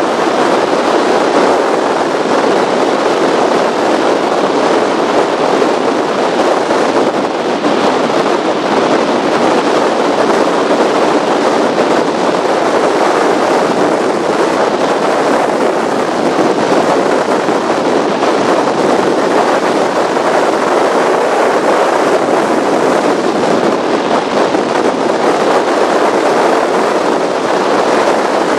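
Powerboat running at speed: a loud, steady rush of wind on a bow-mounted camera with water noise, unbroken throughout.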